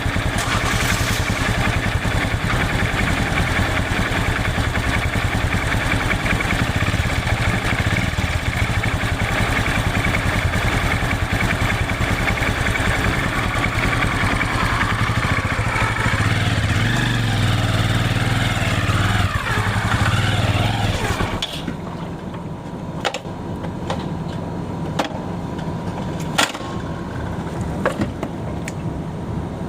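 Kick-start motorcycle engine running steadily, its pitch wavering in the last few seconds before it stops suddenly about two thirds of the way through. After it cuts out, a quieter low sound remains with a few sharp clicks.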